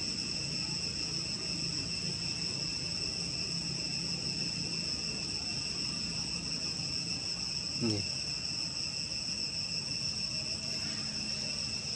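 Steady drone of forest insects, a constant high-pitched buzz at two pitches. About eight seconds in there is one brief falling vocal sound.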